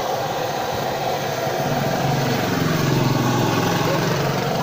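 Steady rushing roar of a gas burner under a pot of frying oil. A small engine's low, rough hum swells in from about a second and a half in.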